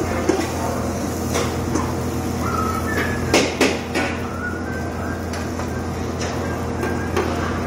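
Metal tongs clacking and scraping on a flat-top griddle in scattered sharp knocks, loudest in a quick cluster about three and a half seconds in, over a steady low kitchen hum.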